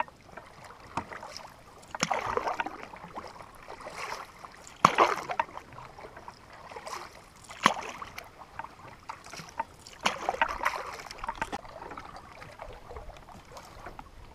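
Canoe paddle strokes: the paddle dipping and pulling through the water in a slow rhythm, a swishing splash about every two to three seconds, with a few sharp knocks among them.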